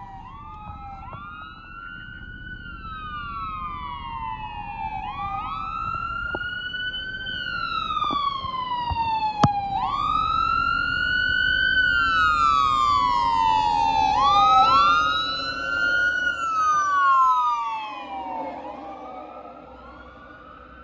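Fire engine siren wailing, each cycle rising quickly and falling slowly about every four and a half seconds, over the rumble of the truck. It grows louder toward the middle and fades near the end as the engine passes, with one sharp click about halfway through.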